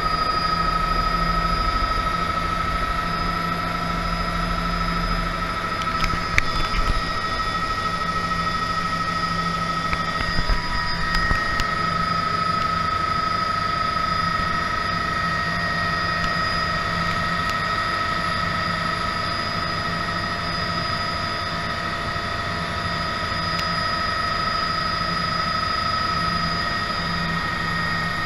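Bell 206B3 JetRanger helicopter's Allison 250 turboshaft engine and rotor running on the ground, a steady high turbine whine over rotor and engine noise. A few brief knocks come about six and ten seconds in.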